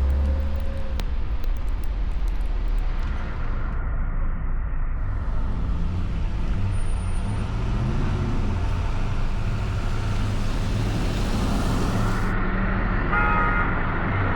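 Car driving on a snowy road: steady engine hum and tyre and road noise. A short high-pitched tone sounds near the end.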